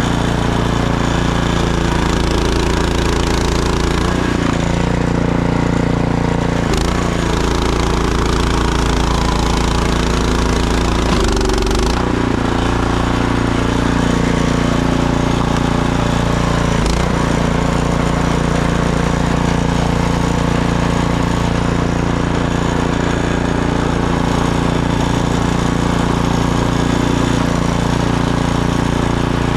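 Gas snowblower engine running steadily at working speed, its note shifting briefly a few times.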